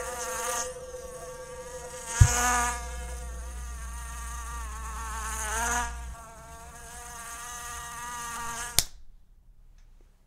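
Insect buzzing that rises and falls in loudness, broken by a sharp smack about two seconds in and another near the end. After the second smack the buzzing stops.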